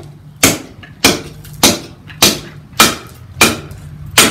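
An Estwing Sportsman camp axe, its head sunk in a stick of kindling, brought down with the wood onto a wooden chopping block again and again, driving the split: seven sharp knocks, a little under two a second.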